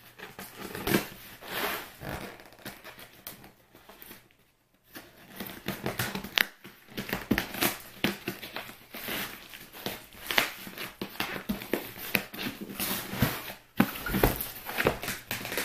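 A cardboard USPS Priority Mail flat rate box being handled and pried at, its self-sealing flap scraping, rustling and tearing in an irregular run of knocks and scrapes, with a short lull about four seconds in.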